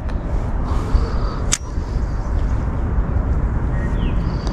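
Outdoor ambience: a steady low rumble with a few faint short chirps. One sharp click comes about one and a half seconds in.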